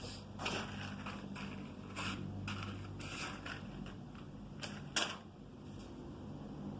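Scattered sharp clicks and knocks from hard objects being handled on a workbench, irregularly spaced with the loudest about five seconds in, over a steady low hum.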